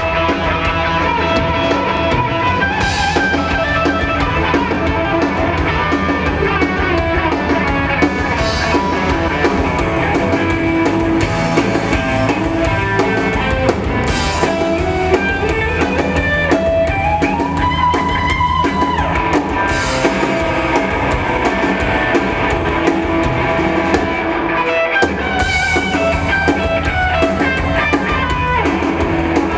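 Live blues-rock band playing through a PA, heard from the crowd: electric guitar with long, bending lead notes over drum kit and bass, with cymbal crashes every few seconds.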